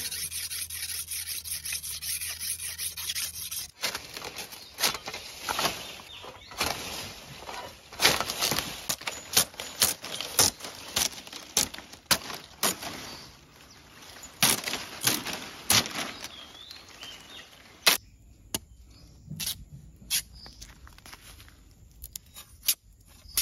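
A knife blade rubbing on a sharpening stone for the first few seconds, then a machete-style knife chopping coconut palm fronds: a run of sharp cracks and snaps, about one or two a second, thinning to occasional single strokes near the end.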